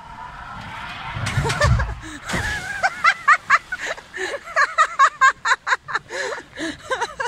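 A small boat sliding down a water-slide ramp with a rising rush and rumble, then hitting the pool with a splash about two seconds in. After that, voices in short loud bursts over the churning water.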